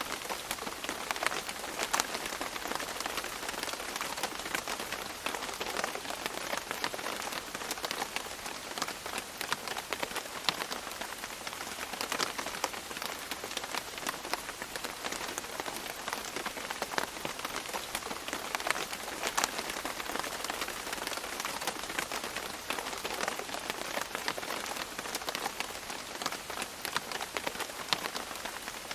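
Steady rain falling on leaves, a dense hiss of many small drops with louder single drips here and there.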